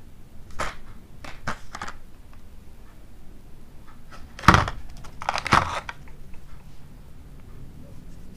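Small plastic packets of motorcycle bolts being handled and crinkled: a few short rustles in the first two seconds, then louder crinkling about four and a half and five and a half seconds in.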